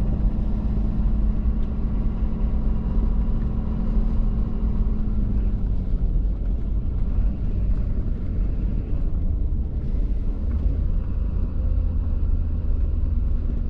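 Truck engine running with a steady low rumble; a humming tone in it fades out about five seconds in.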